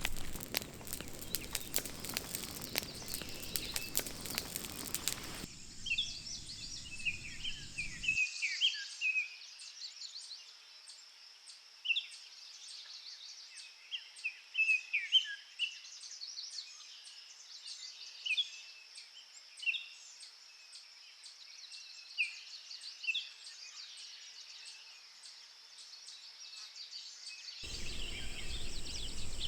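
Rainforest ambience: many short bird chirps over a steady high insect drone. It opens with a few seconds of dense crackling noise, and a steady hiss comes back near the end.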